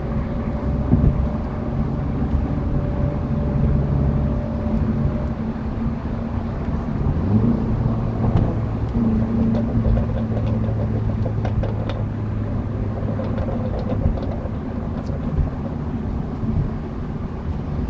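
BMW 340i's turbocharged straight-six exhaust running with a deep, steady note that rises in pitch about seven seconds in and then holds. A few short, sharp pops are scattered through the second half.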